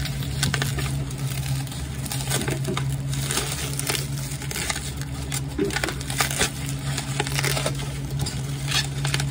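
Bubble wrap being popped between fingers: a run of sharp, irregular pops with crinkling of the plastic, over a steady low hum.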